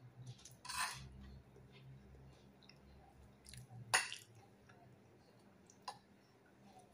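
Quiet eating at a plate: faint chewing, a brief scrape about a second in, a sharp clink of a utensil against the plate about four seconds in, and a lighter click near the end.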